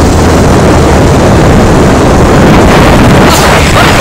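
Four-wheeler (ATV) engine running steadily at speed, a constant low hum under heavy wind buffeting on the microphone.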